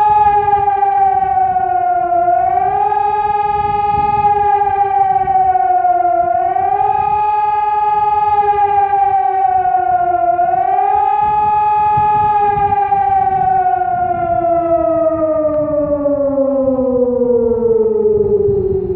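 Civil-defence siren sounding the rising-and-falling public warning tone, its pitch swelling up and sagging back about every four seconds. About two-thirds of the way in it stops swelling and runs down in one long falling glide as the signal ends.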